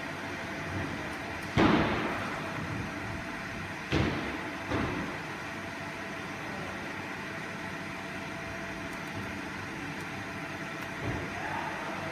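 Steady machine hum with four sudden knocks or clunks: the loudest about a second and a half in, two more about four seconds in and just after, and a lighter one near the end.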